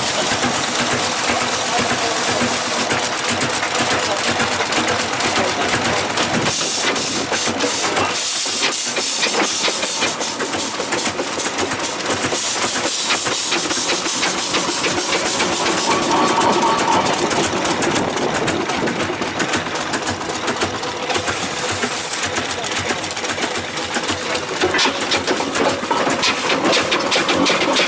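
Steam roller running as it is driven along: the steady hiss of steam mixed with a fast, uneven clatter of clicks and knocks from its moving engine and gearing, with louder bursts of steam hiss now and then.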